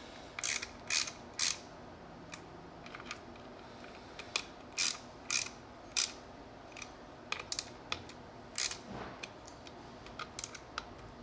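Craftsman hand ratchet clicking in short strokes, a string of sharp, irregular clicks, as the bolts holding the Bafang BBS02 controller to the motor are tightened.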